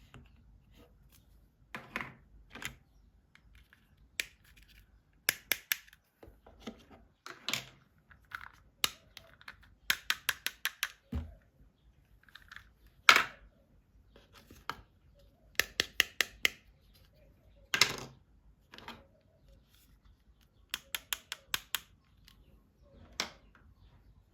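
Plastic toys and their packaging being handled during an unboxing: sharp clicks, many coming in quick runs of four to six, with brief scraping and rustling between them.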